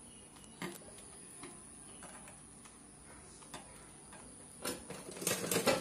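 A few faint clicks as fabric and elastic are set under a sewing machine's presser foot, then a light thump about four and a half seconds in. Just before the end the sewing machine starts stitching with a rapid, even clatter.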